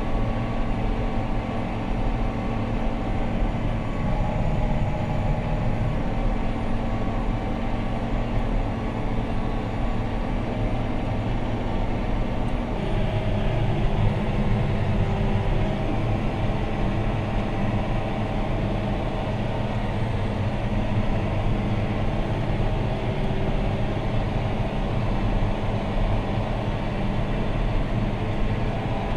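John Deere 6215R tractor's six-cylinder diesel engine running steadily under load, heard inside the cab while it pulls a plough, with a low drone and engine hum throughout. The engine note changes slightly about halfway through.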